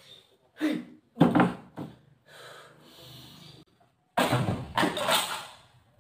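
A young man groaning and breathing hard in frustration, without words: two short outbursts near the start, a fainter breathy stretch, then a louder, longer cry about four seconds in.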